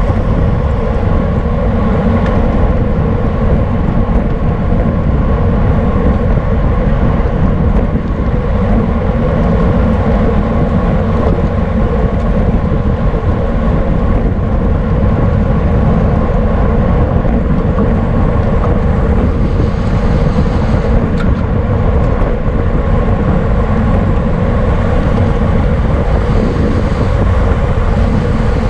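Steady wind rush on the microphone of a camera riding along in a bicycle race, a dense low rumble with a faint steady hum above it.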